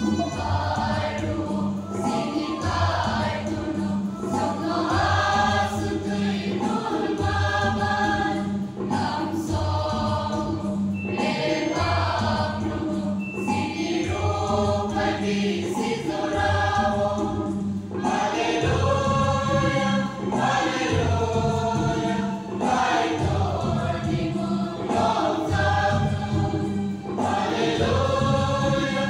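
Mixed choir of young women and men singing a gospel song together, amplified through microphones and loudspeakers, with steady low notes held underneath the voices.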